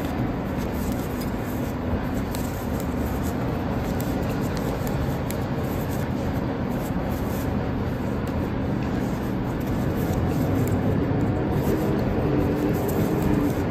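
Steady low background rumble, unchanging throughout.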